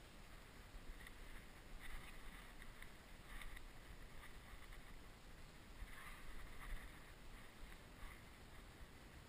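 Faint, intermittent rustling and crunching of steps through dry mown rapeseed stubble as a tracking dog and its handler move along the track.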